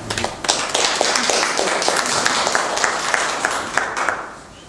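Audience applauding: a short round of clapping that dies away about four seconds in.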